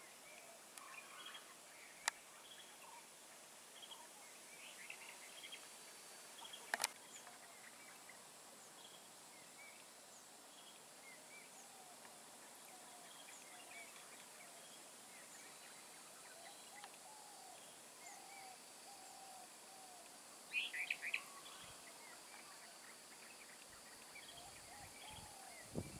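Faint forest ambience: scattered bird calls, short chirps repeated on and off over a steady hiss. A sharp click comes about two seconds in and another near seven seconds, and a brief louder flurry of higher calls about twenty seconds in.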